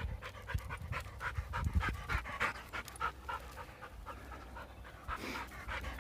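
A dog panting heavily in quick, even breaths, several a second, a little softer for a moment past the middle before picking up again, over a low rumble.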